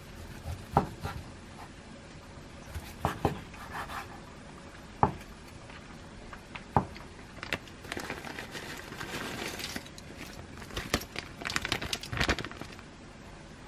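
Kitchen knife slicing through a seared steak and knocking on a wooden cutting board: several sharp, separate knocks a second or two apart. Later, a stretch of rustling and a quick run of small clicks.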